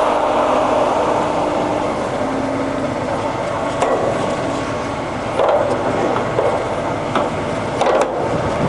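Ursus centre lathe running under power, its headstock gears and spindle turning steadily at about 500 RPM. A few sharp knocks come in the second half.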